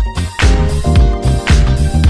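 Upbeat background music with a heavy, steady beat about twice a second.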